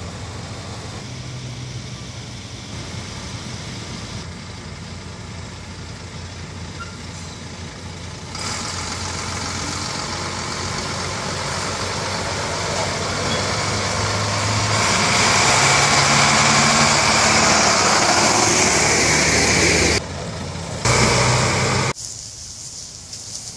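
Military trucks' diesel engines running as they drive past, a heavy six-wheeled wrecker among them. It grows louder as a truck comes close, then cuts off suddenly a few times near the end.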